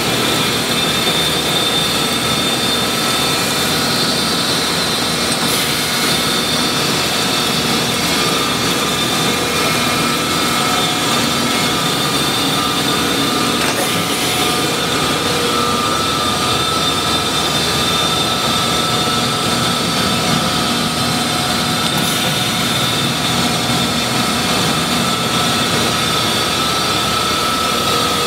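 Mattison surface grinder running under power, with a steady mechanical rush and several high, steady whining tones from the wheel spindle and drives, unchanged throughout.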